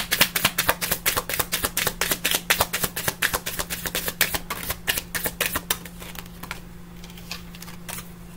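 Tarot deck being shuffled by hand: a fast run of card clicks, about eight a second, that thins out to a few scattered clicks after about six seconds.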